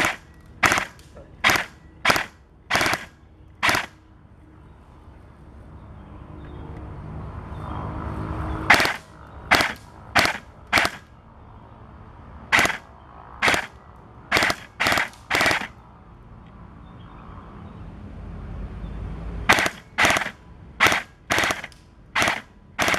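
Airsoft guns fired one shot at a time, sharp cracks spaced under a second apart in three strings: five shots near the start, about ten in the middle and about six near the end.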